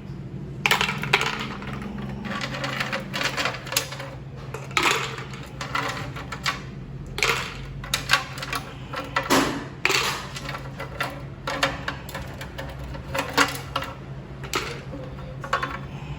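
Irregular clicks, clatters and rustles of objects being handled, a few a second, over a steady low hum.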